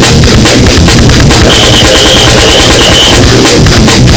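Loud goregrind music with dense drumming; a high wavering tone comes in about one and a half seconds in.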